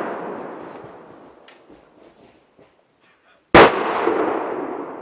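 A single gunshot about three and a half seconds in, with a long echoing tail that dies away over the next second and more. Before it, the echo of an earlier shot fades out over the first couple of seconds.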